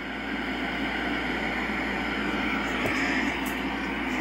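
Static hiss from the speaker of a 1978 Hitachi CU150R solid-state colour portable TV receiving no station, growing a little louder, with a couple of faint clicks in the second half.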